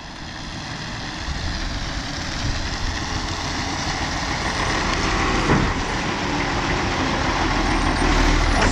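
Autocar Labrie Automizer garbage truck running, its engine rumble growing steadily louder, with a short knock about halfway through.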